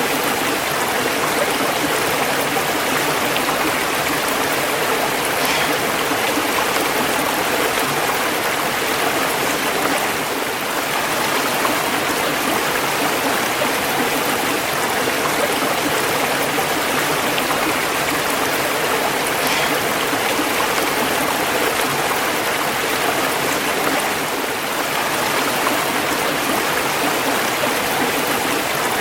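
Running water of a stream or small waterfall, a steady rushing and splashing with no change.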